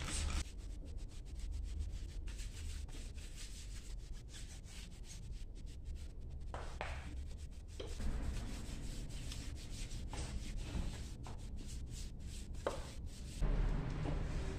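Small detailing brush scrubbing a black steel wheel around its lug nuts in many short, quick strokes. A microfiber towel wipes the rim, with a low bump near the end.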